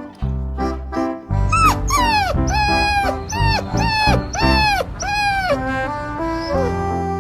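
Dog crying out in a series of about six drawn-out cries that each slide down in pitch, protesting while its paw is held for the vet. Background music plays underneath.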